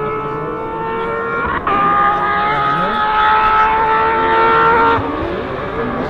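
Porsche 997 GT3 Cup rally car's flat-six engine at full throttle, approaching. Its note climbs, breaks off for a moment about a second and a half in, then holds high and loud until it drops away about five seconds in.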